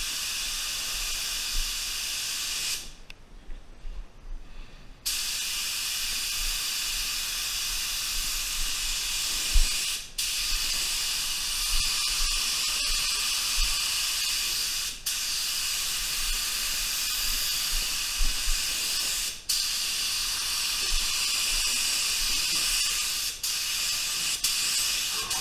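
Tuba TR300 HVLP gravity-feed paint spray gun spraying a pearl coat, its compressed air hissing steadily. It stops for about two seconds early on, and briefly a few more times as the trigger is let off between passes.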